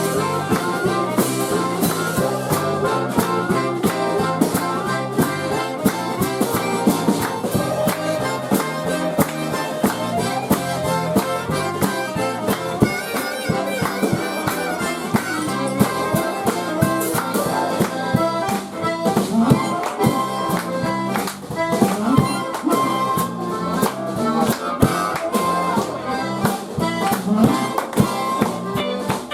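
Live band of accordion, electric guitar, harmonica, bass and drums playing an instrumental passage with a steady beat, reed instruments (harmonica and accordion) carrying the lead.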